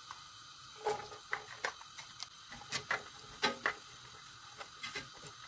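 Chopped onions tipped from a glass bowl into a pot of cooking oil and stirred with a silicone spatula: a run of irregular light clicks and taps of bowl and spatula against the pot.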